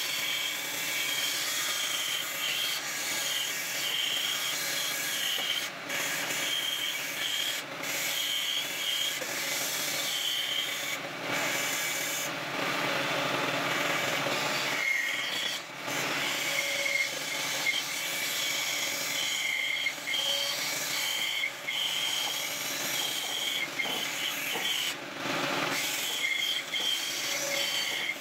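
Bandsaw cutting through thick pine, trimming the corners of an octagonal wheel rim round: a steady hiss of the blade in the wood with a whining tone over it, and a few brief dips along the way.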